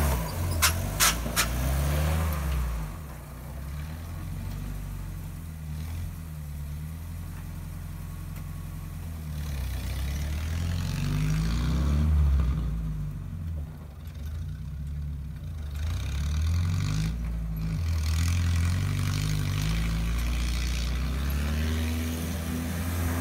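A 1965 Jeep CJ-5's F-134 four-cylinder engine, fitted with a header, revving up and down as it drives through deep snow, its pitch rising and falling again and again. A few sharp clicks in the first second and a half.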